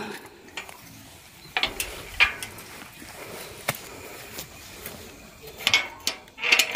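Metal clicks and clanks from a small steel gate's sliding bolt latch and hinges as the gate is unbolted and swung open, a few sharp knocks in the first two seconds and another cluster near the end.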